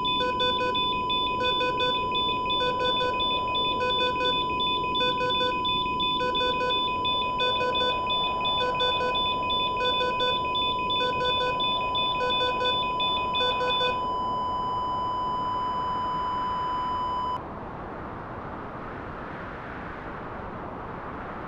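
Hospital patient monitor alarm: double beeps about every 1.2 seconds over a continuous steady flatline tone. The beeps stop about two-thirds of the way through, the tone cuts off a few seconds later, and a steady hiss is left.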